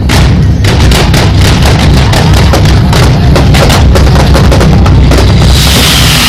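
Fireworks going off in a rapid barrage of loud bangs, several a second, over a deep rumble. Near the end a hissing whistle sets in and falls in pitch.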